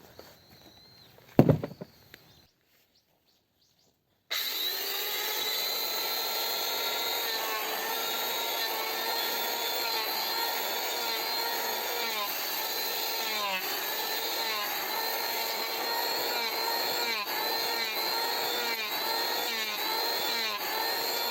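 Chainsaw running at high revs and cutting wood, its pitch dipping briefly again and again as the chain bites. It starts suddenly a few seconds in, after a single knock.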